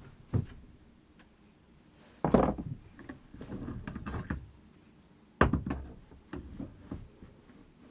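Knocks and clunks of a chainsaw bar and tools being handled. The loudest comes about two seconds in and another about five and a half seconds in, with lighter clicks and rustling between them.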